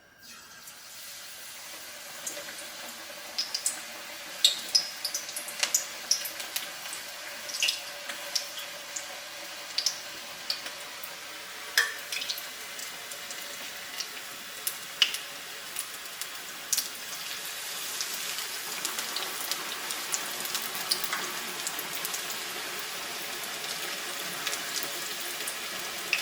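Bakwan sayur fritter batter deep-frying in hot canola oil: a steady sizzle with frequent sharp pops and crackles, growing louder about two-thirds of the way through.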